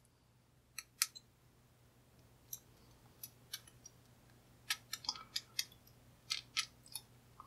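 Faint small metallic clicks and scrapes of a lock shim being worked into a brass lock cylinder to get past its pins. A few single clicks at first, then quick clusters of clicks in the second half.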